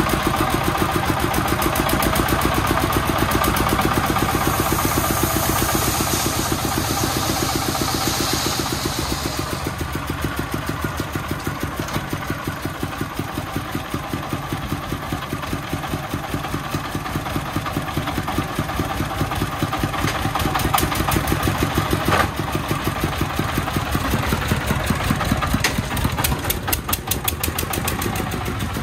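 The 33-horsepower single-cylinder diesel of a three-wheeled công nông dump truck running with a steady, rapid chug while the dump bed tips to unload sand. A rushing hiss joins about five seconds in and lasts about five seconds.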